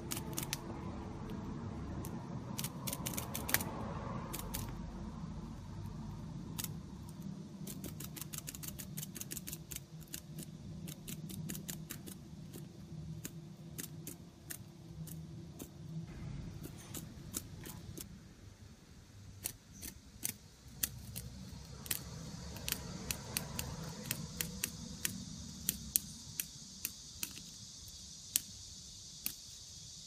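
Chinese bush cricket (katydid) chewing into a cicada's body: sharp, irregular crunching clicks of its mandibles on the hard shell. A steady high hiss joins in over the last several seconds.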